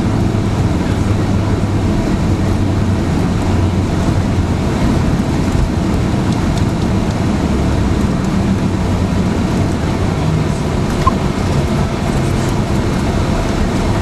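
Steady cabin noise inside a Boeing 767 on the ground after landing: a low rumble from the engines, the air system and the wheels, with no rise or fall. A brief click about eleven seconds in.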